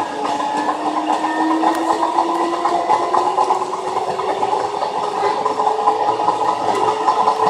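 Odakyu 8000 series electric train accelerating: the traction motor and control equipment whine climbs steadily in pitch over the clatter and rumble of the moving car.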